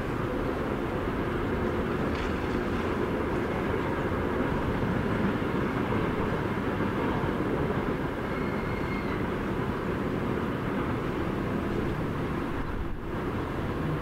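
A steady low rumble over the outdoor village ambience, with a faint thin high whine briefly about eight seconds in.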